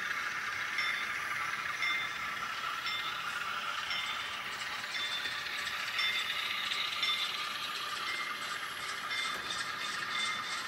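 Atlas N scale Amtrak Dash 8 model locomotive running on its track with a steady whir. From about nine seconds in, a light, rapid, even clicking joins as the passenger cars roll past.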